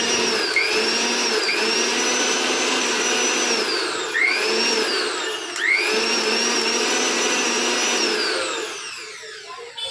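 Mixer grinder's motor running at high speed. Its whine drops in pitch and climbs back several times, and near the end it falls steadily as the motor is switched off and spins down.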